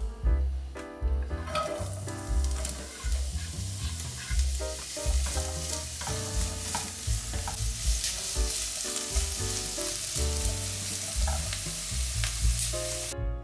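Vegetables frying in hot oil in a pan, a steady sizzle that starts about a second in and stops shortly before the end, under background music.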